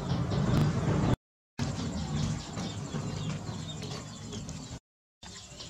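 Outdoor ambience of birds chirping and cooing over a low rumble. The sound cuts out completely twice, briefly.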